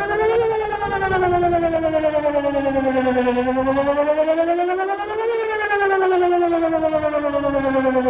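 Whelen 2910 electronic outdoor warning siren sounding a wail during a test, its tone gliding slowly up and down. It peaks in pitch about half a second in and again about five seconds in, falling in between.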